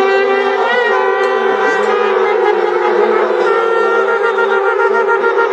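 Many conch shells (shankh) blown together in one continuous chorus of held tones at slightly different pitches.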